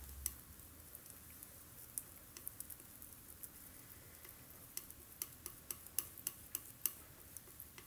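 Palette knife working oil paint on a palette: faint, irregular light clicks and taps, few at first and coming thicker in the second half.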